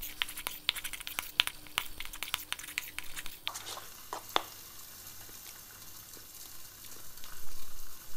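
Metal spoon stirring thick sauce in a small stainless-steel bowl, clinking and scraping in quick clicks for the first three or so seconds, then a couple more. Under it, salmon fillets frying in a covered pan give a faint steady sizzle.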